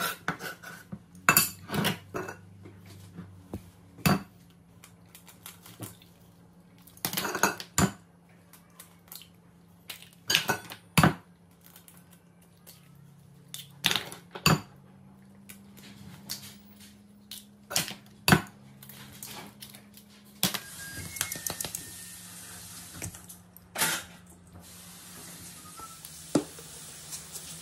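Kitchen prep knocks and clinks: a knife on a wooden chopping board, eggs cracked against a ceramic bowl, and seasoning shaken over the bowl, heard as scattered sharp knocks a second or two apart. A low steady hum runs underneath.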